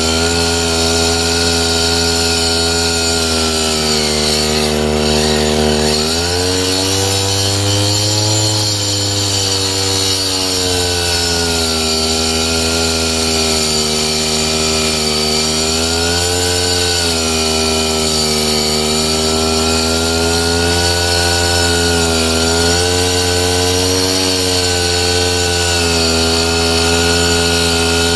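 Brush cutter engine running at high speed while its blade rips wooden slats lengthwise. The engine note sags and recovers several times as the wood is pushed through.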